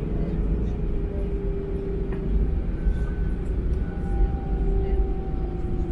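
Cabin noise of an Airbus A320 taxiing, with its engines at taxi power: a steady low rumble under a droning hum. A faint higher whine joins about three seconds in.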